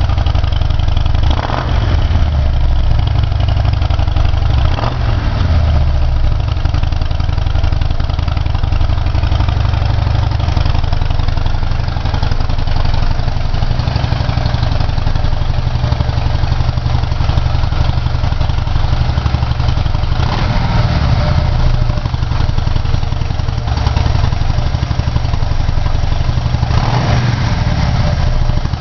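Harley-Davidson V-twin idling through 80609-07 exhaust mufflers. A few short throttle blips rise and fall back to idle, about four in all.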